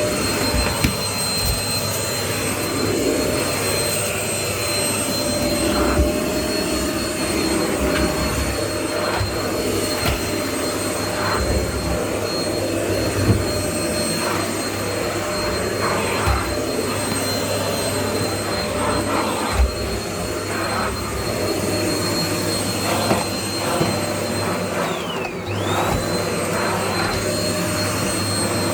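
Bush cyclonic stick vacuum cleaner running with a steady high motor whine, with occasional knocks as the head is moved about. Near the end the whine drops sharply in pitch for a moment, then comes straight back up.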